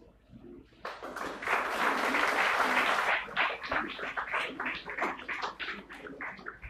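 Audience applauding. It starts suddenly about a second in, is loudest for the next two seconds, then thins out into scattered separate claps.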